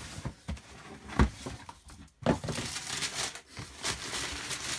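Sneaker packaging being handled: crinkling and rustling, with a few sharp knocks, the loudest about a second in.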